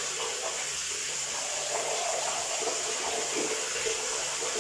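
Shower water running steadily, a constant hiss of spray falling in a small tiled bathroom.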